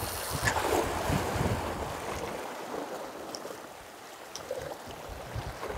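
Sea surf washing against the rocks with wind buffeting the microphone; the low wind rumble eases off about halfway through.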